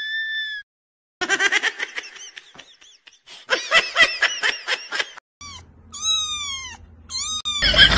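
A drawn-out high cry, then a person laughing in quick repeated bursts for about four seconds. After a cut come a few short high squeaky calls, each falling in pitch, over a low hum.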